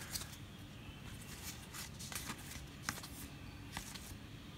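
Faint, scattered flicks and rustles of a stack of Topps baseball trading cards being handled and leafed through by hand.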